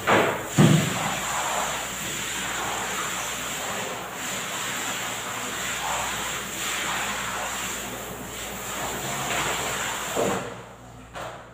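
Water running steadily with a rushing sound, as a tiled bathroom is cleaned. There are a couple of knocks in the first second, and the water stops near the end.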